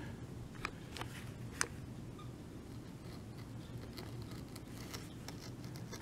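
Faint handling sounds from a caulking gun being moved into position: a few scattered sharp clicks and light scraping.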